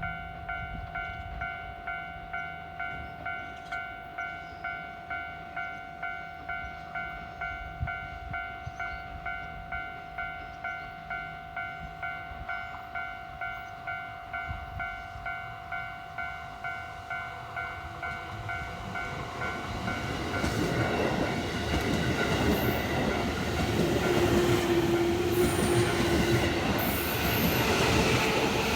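Japanese level-crossing warning bell ringing in a steady pulse about twice a second. From about two-thirds of the way through, a JR West 207 series electric multiple unit runs through the crossing: wheel and running noise grows loud and stays loud to the end.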